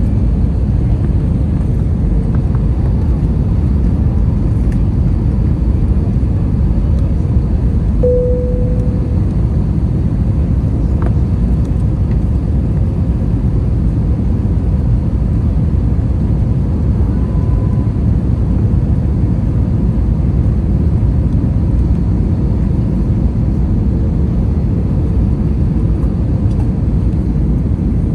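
Steady cabin noise inside an Airbus A321 in flight: a deep, even roar of airflow and the drone of its IAE V2500 engines. A short tone sounds briefly about eight seconds in.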